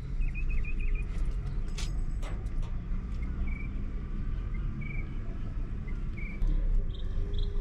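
Truck engine running with a steady low rumble heard from inside the cab, its note stepping up slightly about six and a half seconds in. Short bird chirps come from outside, with a few faint clicks.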